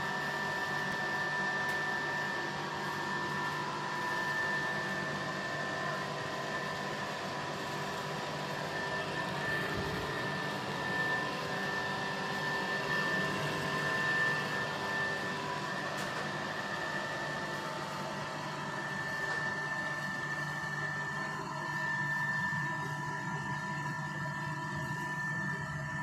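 Industrial flatwork ironer running with a sheet feeding through its rollers: a steady machine hum with a high steady whine over it.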